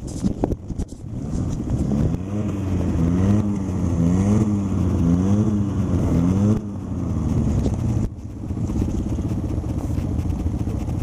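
Quad bike (ATV) engines idling. From about two seconds in, one engine is revved up and down about once a second, five times, then drops back to a steady idle.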